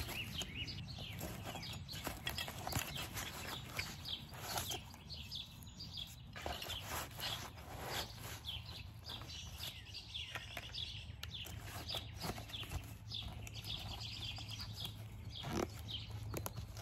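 Rustling and scraping of a small fabric fender bag as a folded Tyvek sheet and tire spoons are stuffed into it and it is zipped shut, with birds chirping in the background.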